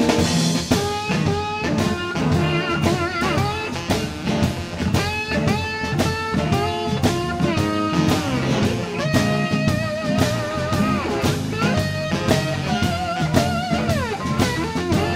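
Live blues band playing an instrumental passage: a lead guitar with bent, wavering notes over bass and a drum kit keeping a steady beat.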